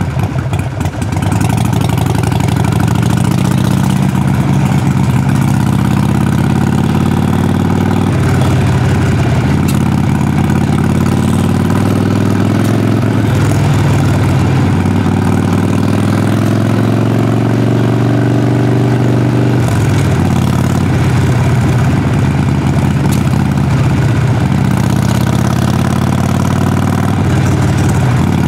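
Exhaust note of a Harley-Davidson Sportster Forty-Eight's air-cooled 1200 cc Evolution V-twin while riding. The engine pitch climbs and drops back several times as the bike accelerates, shifts and eases off.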